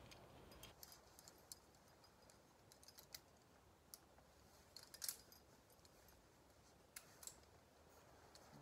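Near silence with faint, scattered clicks and taps of climbing gear and rope handling, the sharpest about five seconds in.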